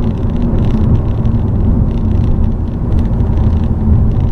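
Cabin noise inside a Volkswagen Jetta TSI cruising at steady speed: the turbocharged four-cylinder engine's steady drone over low road and tyre rumble.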